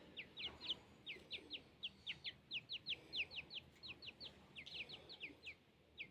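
Chicks peeping: a steady string of short, high peeps, each sliding down in pitch, several a second.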